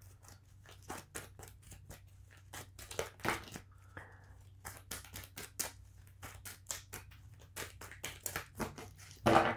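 A deck of oracle cards being shuffled by hand: a run of quick, irregular soft snaps and slides of card against card, with a louder thump near the end.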